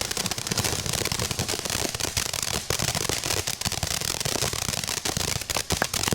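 Consumer fireworks going off: a dense, continuous run of rapid crackling pops, many a second, growing a little sharper near the end.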